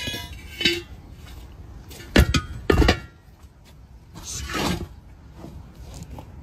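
Steel truck wheel parts knocking together: a few metal clinks, then two loud ringing clanks about half a second apart some two seconds in. Near the middle comes a rubbing scrape, as a steel rim is worked down into a truck tyre.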